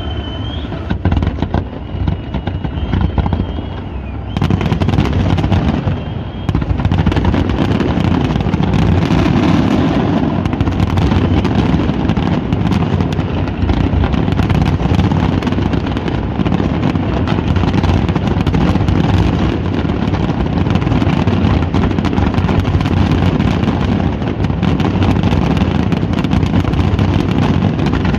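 Fireworks display: aerial shells firing and bursting in rapid bangs and crackles. About four seconds in it thickens into a near-continuous barrage.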